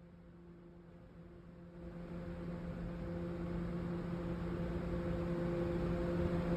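Electric shooting-range target carrier motor running with a steady hum, growing steadily louder from about two seconds in.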